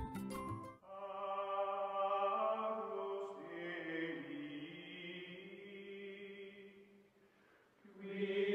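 Chant-like choral music: voices holding long, slowly shifting notes, which fade down about seven seconds in and swell back about a second later.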